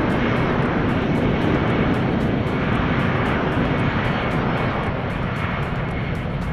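Jet engines of a twin-engine Boeing 757 airliner running at high power as it rolls along the runway: a steady deep rumble with a thin whine on top.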